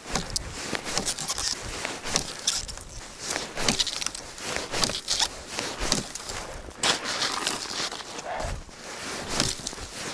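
Irregular crunching and crackling, one to two sharp crunches a second: a person moving about and handling things in frozen snow.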